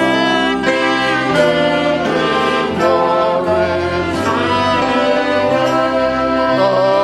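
Instrumental music: a melody of held notes that slide from one pitch to the next, over sustained chords and a low bass line.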